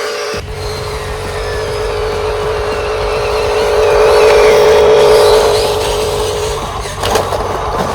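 Electric motor and plastic gearbox of a remote-control construction model whining steadily, growing louder toward the middle and then easing off.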